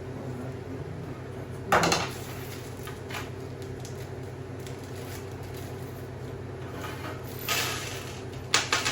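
Metal cage parts knocked and clattered together while being handled during assembly: a sharp clank about two seconds in, a softer one near the end, then two quick knocks, over a steady low hum.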